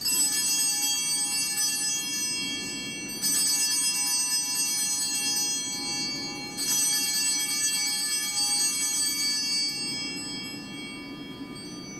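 Altar bells rung three times, about three seconds apart, each a shimmer of high bell tones that rings on and fades after the third. They mark the elevation of the chalice at the consecration of the Mass.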